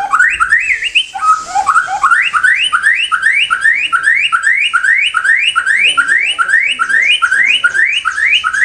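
White-rumped shama (murai batu) singing loudly: a few varied notes at first, then one quick rising whistled note repeated about three times a second.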